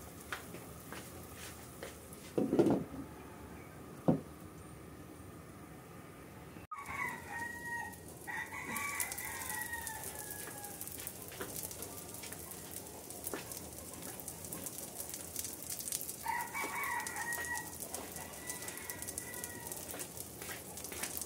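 A rooster crows twice, about seven seconds in and again around sixteen seconds, each call falling in pitch. Under it, from about eight seconds on, an egg and enoki mushroom omelette crackles and sizzles in the frying pan. Before that it is quiet, with two knocks.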